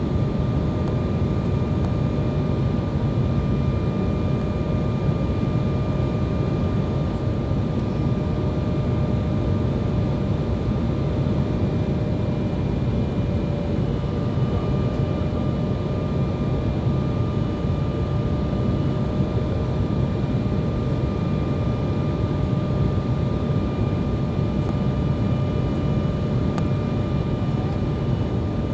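Jet airliner cabin noise heard from a window seat during descent on landing approach: the steady roar of the engines and airflow, with a faint steady whine above it.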